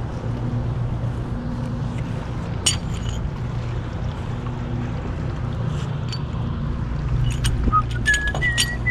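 A steady low hum throughout. Near the end come a few light metallic clicks with brief ringing, as the flukes of a small folding grapnel anchor are handled.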